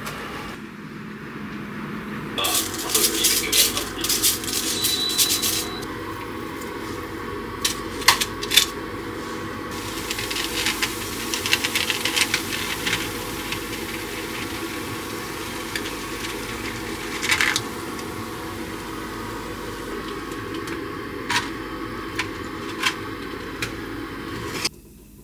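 Silver jewellery being cleaned in a foil-lined container with baking soda: rustling handling noise, a few sharp metallic clicks as chains drop in, and warm water poured in about ten seconds in, followed by a faint steady hiss.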